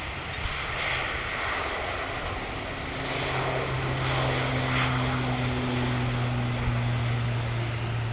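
ATR 72-600 twin turboprop taking off: a steady, low propeller drone over engine noise, growing louder about three seconds in.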